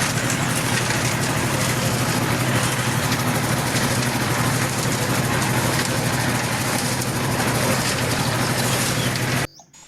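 A small motor running steadily with a constant hum and a hissing, whirring noise. It cuts off abruptly near the end.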